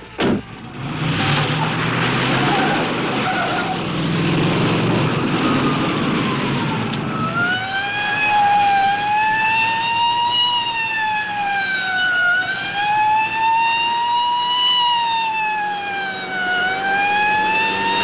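Car engine and road noise, then, from about seven seconds in, a police car siren wailing, its pitch slowly rising and falling about every four seconds.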